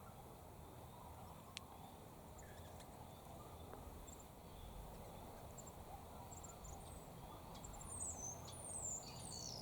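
Faint outdoor background with scattered high bird chirps. Near the end come a few short, high whistled calls that slide downward.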